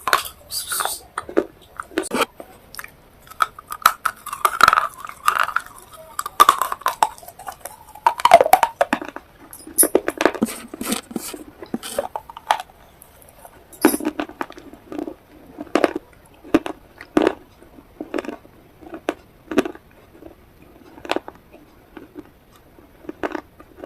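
Close-up eating sounds: irregular bites, chewing and crunching, with sharp clicks of cutlery against a dish.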